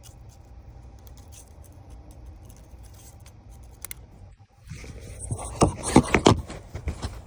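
Small metallic clicks of a lock pick working inside a Ford van's lock. About five seconds in comes a louder run of metal rattling and sharp knocks.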